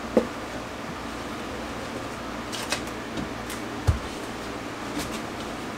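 A few light knocks and taps of a drywall sheet being stood on its floor shim and pressed into place against the wall studs, the heaviest a dull thump about four seconds in, over a steady background hum.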